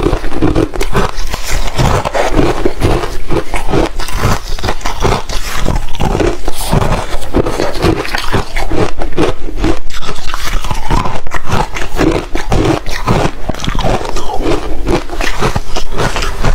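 Ice being bitten and chewed close to the microphone: loud, rapid, irregular crunching, several crunches a second.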